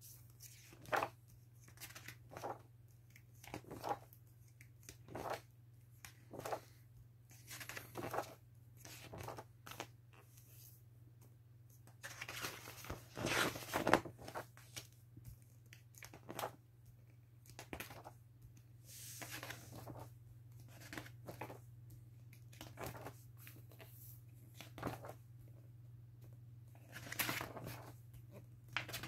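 Pages of a large, glossy encyclopedia being turned one after another: short paper swishes and rustles, some louder flips about a third and two-thirds of the way through, over a steady low hum.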